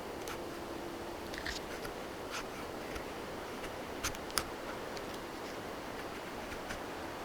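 Light scraping and scattered small clicks of a knife blade, the Takumitak Companion's D2 steel blade, cutting into wood, with two sharper clicks about four seconds in.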